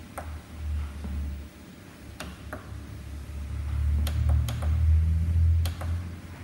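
Electric treadmill running with a low motor-and-belt hum that swells about four seconds in, with several sharp clicks as console buttons are pressed.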